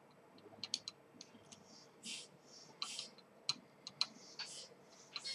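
Faint scattered clicks and ticks, with a few short soft hisses, while solder is melted onto a socket pin with a soldering iron.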